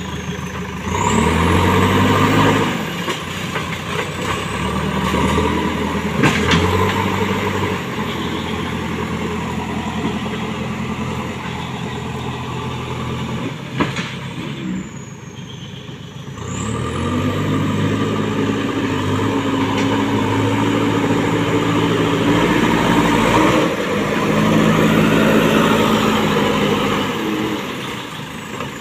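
JCB backhoe loader's diesel engine working under load, revving up and easing off several times as it shifts and pushes soil, with a brief lull about halfway through.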